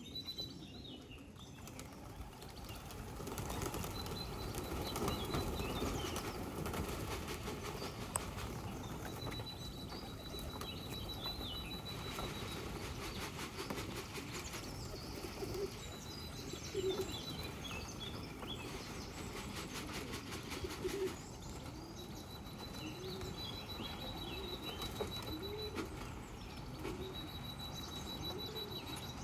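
Racing pigeons flapping their wings and cooing around the loft. Repeated high, fast trills of a small bird come and go in the background.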